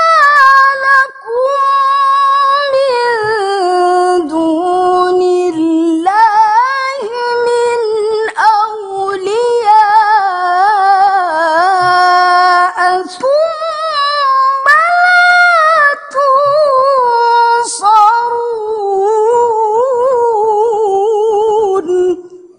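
A woman reciting the Quran solo in the melodic tilawah style, drawing out a phrase in long held, ornamented notes that waver, climb and fall, with a few short breaths between them. The voice fades out near the end.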